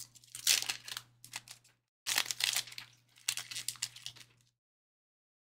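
Foil trading card pack wrappers crinkling and tearing as packs are ripped open, in three bursts of a second or two each that stop about four and a half seconds in.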